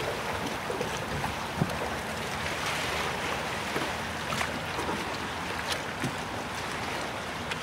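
Water sloshing and slapping in the wake of a fast boat that has just passed, with wind noise on the microphone. A sharp knock about a second and a half in.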